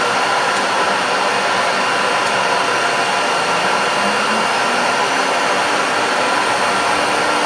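CNC router engraving a door: a steady loud rushing noise with several constant whining tones from the spinning spindle, unchanging throughout.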